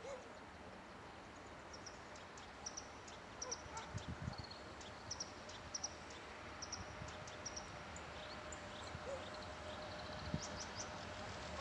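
Small birds chirping in short high notes, over a faint steady hum that slowly grows louder as a 3ES5K electric freight locomotive approaches in the distance, a thin steady tone joining it about two-thirds of the way through.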